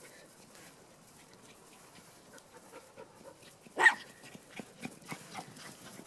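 A small dog gives one short, sharp bark about four seconds in, over faint rustling.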